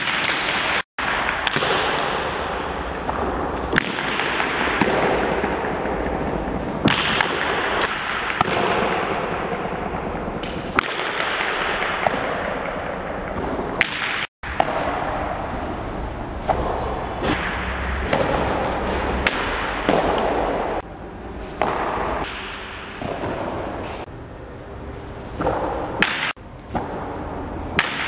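Hard jai alai pelota striking the fronton's front wall and floor in sharp cracks every one to three seconds, each ringing on in a long echo through the hall, as the ball is thrown and caught with a cesta punta basket.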